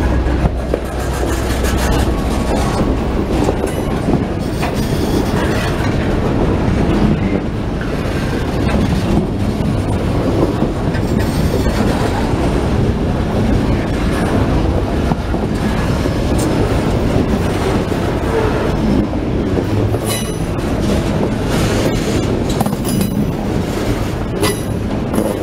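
CSX freight train of boxcars rolling past close by: a steady loud rumble with the wheels clattering over the rails. Brief high-pitched wheel squeals come in the last few seconds.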